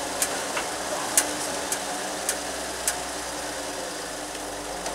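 Toyota FJ40 Land Cruiser's engine idling steadily while creeping slowly, with about five sharp clicks in the first three seconds.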